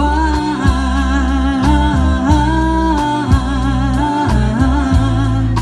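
Live band music: a singer draws out long, wavering sung notes over a bass line and a steady beat.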